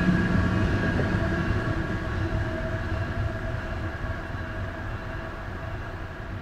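A train out of sight, its low rumble and steady tones slowly fading away after a horn has sounded.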